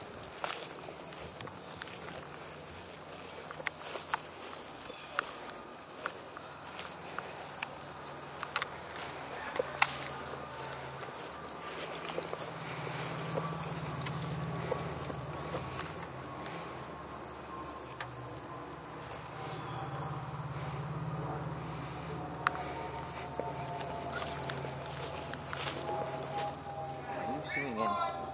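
Insects, likely crickets, shrilling in a steady high-pitched chorus, with a few sharp clicks scattered through it and a low hum that swells in the middle.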